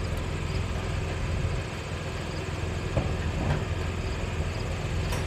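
An engine idling steadily, with a faint knock about three seconds in.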